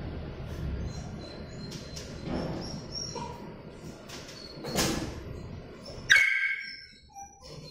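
A small terrier gives one short, high-pitched yip about six seconds in, over soft rustling and a single knock a second before.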